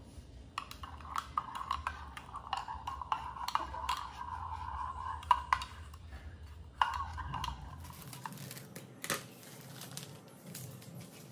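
A metal spoon stirring and scraping inside a ceramic cup of chocolate-coffee mix, with many small clinks. After about eight seconds the stirring stops, giving way to a few knocks and rustling as a plastic bag of flour is handled over a stainless steel bowl.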